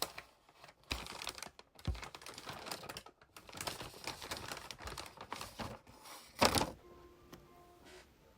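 Crisp crinkling and crackling from something being handled, with dull thumps about one and two seconds in and a louder crackle near the end before it goes quiet.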